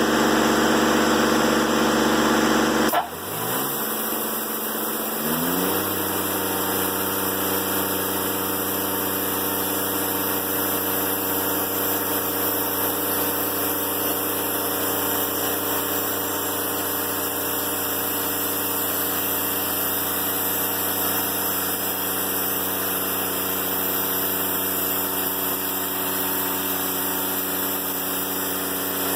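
Sawmill's diesel engine running fast and loud, dropping off abruptly about three seconds in. Its pitch shifts for a couple of seconds, then it settles into a steady idle.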